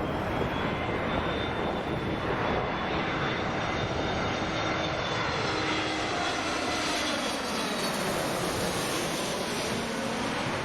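Jet airliner's engines as it passes, a steady rushing noise with faint tones sliding in pitch.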